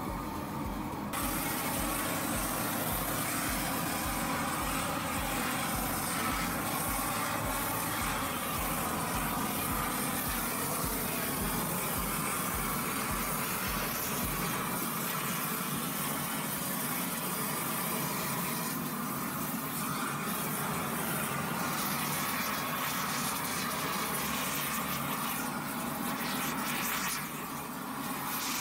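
Propane weed-burner torches running with a steady rushing hiss, preheating a cast iron brake drum and mild steel plate to 500–750 °F for welding. A low rhythmic throb sits under the hiss for the first half, then stops.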